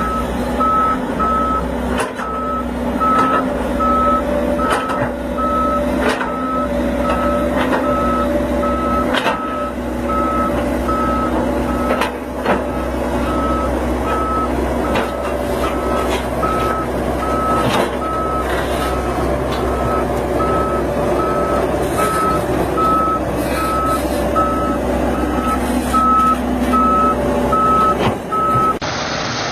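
A heavy vehicle's reversing alarm beeping steadily about once a second over a running engine, with scattered knocks and clanks. The beeping stops shortly before the end.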